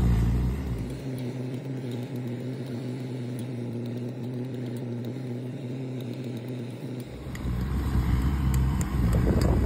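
Steady hum of an idling engine, with a low rumble that drops away about a second in and comes back near seven seconds. A few light clicks are heard near the end.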